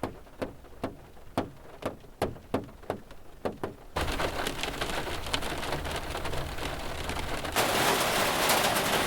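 Water drops falling one at a time, a few a second. About four seconds in this cuts abruptly to steady rain, which switches to heavier, louder rain near the end.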